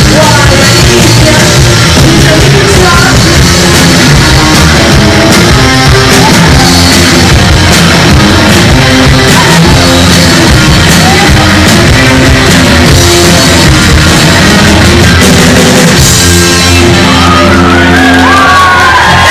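A live rock band playing loud on distorted electric guitars, bass guitar and drum kit, with voices yelling over it. Near the end the playing thins and high wavering tones come in.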